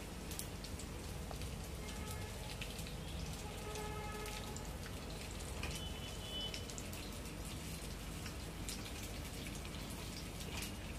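Besan-coated fish sizzling and crackling as it shallow-fries in hot mustard oil in a flat pan, a steady dense crackle.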